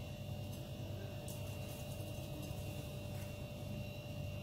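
Steady low electrical hum with a thin steady tone above it, and a couple of faint soft rustles from hands working dough in a plate of semolina.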